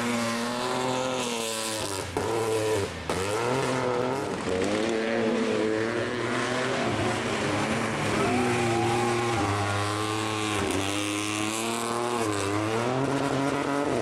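Rally car engine revving hard through the gears, its pitch climbing and dropping several times as it accelerates, lifts and changes gear.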